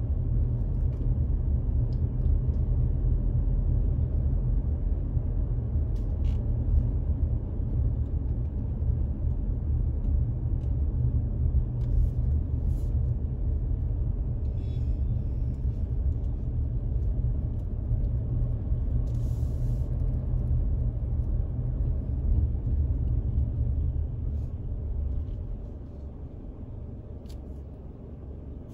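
Car driving on the road: a steady low rumble of tyres and engine, which becomes quieter about 25 seconds in.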